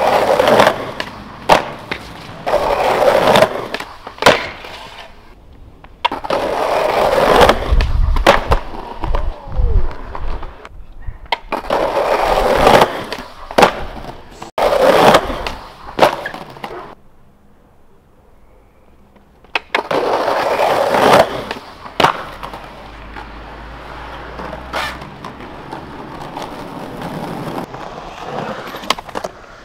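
Skateboard wheels rolling over street asphalt and concrete, in several separate runs broken by sharp clacks of the board hitting the ground, with a short lull past the middle.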